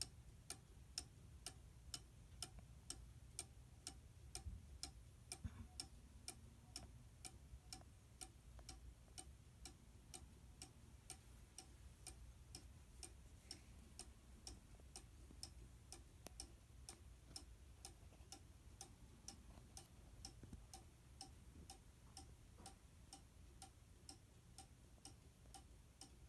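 Tezuka Clock model #161 cuckoo clock ticking steadily at about two ticks a second, its movement freshly solvent-cleaned and oiled.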